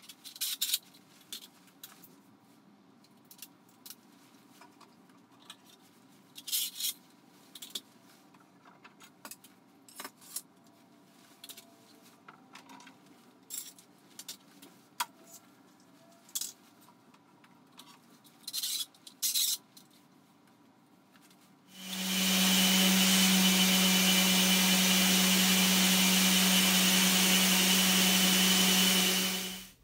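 Metal bar clamps being handled and tightened, giving scattered clinks, rattles and short scrapes. About two-thirds of the way in, a random orbital sander starts and runs steadily on a Douglas fir desktop, a loud even hiss with a steady hum, then stops abruptly.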